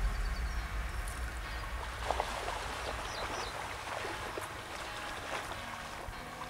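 Pond water lapping in reedy shallows, with a few small soft splashes about two seconds in and again around four and five seconds.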